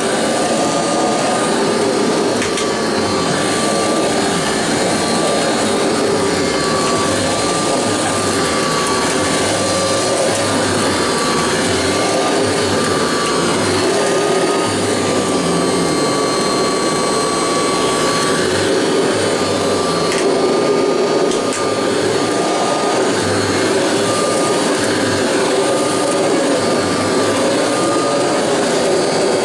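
Vintage Kirby Heritage upright vacuum cleaner running steadily, a loud even rush of air with a high motor whine that wavers slightly in pitch.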